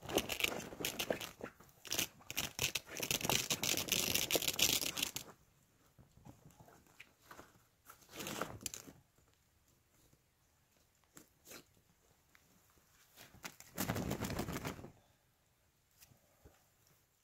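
An army tent's fabric wall flap and clear plastic window sheeting rustling and crinkling as they are rolled up and handled. The rustling is loud for the first five seconds, with two shorter bursts about eight and fourteen seconds in.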